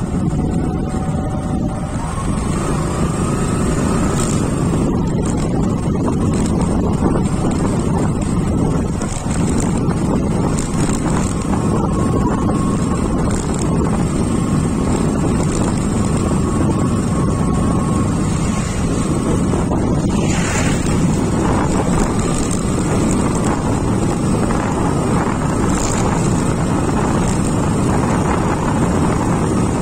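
Motorcycle engine running steadily while riding, mixed with wind noise on the microphone.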